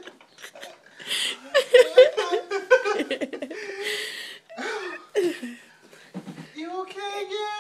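Loud laughter with wordless vocal exclamations, ending in a long held voice sound.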